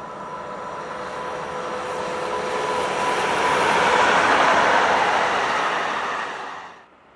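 Two-car electric tram-train (Karlsruhe Stadtbahn) passing at speed. Its wheels on the rails build from a distant rush with a steady whine to loudest about four seconds in as it goes by close. The sound cuts off suddenly near the end.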